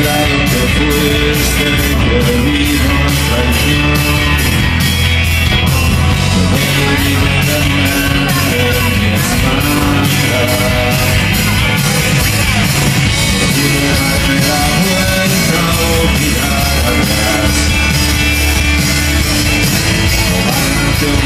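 Live rock band playing: electric guitars and drum kit keeping a steady beat, with a man singing over them.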